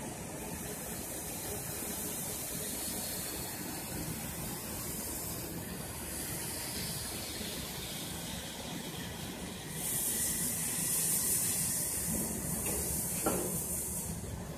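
Metal-cutting band saw machines running in a workshop: a steady mechanical noise, with a louder hiss coming in about two-thirds of the way through and a short knock near the end.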